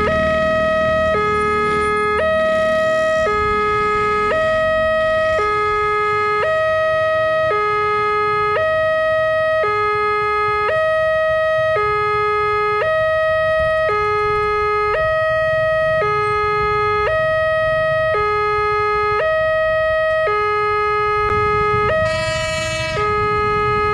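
Railway level-crossing warning alarm: an electronic two-tone signal switching between a higher and a lower tone about once a second, over a steady higher tone, sounding while the barrier is down for an approaching rail vehicle. A short horn sounds near the end.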